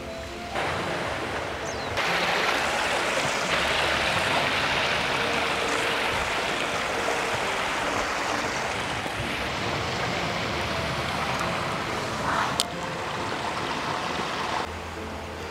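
Sea waves washing on a rocky shore: a steady rushing hiss that steps abruptly up and down in level a few times, with one brief click near the end.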